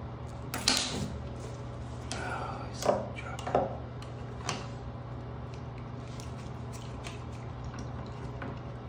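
Plastic pumpkin carving saw scraping and knocking inside a metal shower drain as a hair clog is dug loose, a few sharp clicks and short scrapes in the first half, over a steady low hum.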